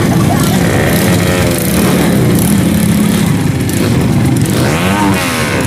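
Off-road trail motorcycle engines running, revved twice so the pitch swells up and falls back, about a second in and again near the end.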